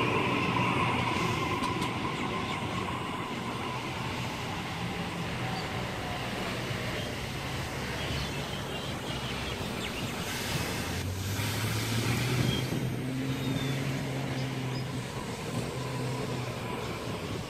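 Double-deck Sydney electric suburban train moving through the station, its traction motor whine dipping slightly in pitch and fading over the first few seconds over a rumble of wheels. Later a second electric train, a Tangara set, approaches with a low steady hum.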